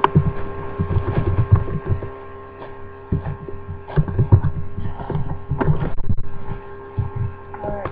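A steady electrical hum made of several fixed tones, under irregular low thumps and a few soft knocks.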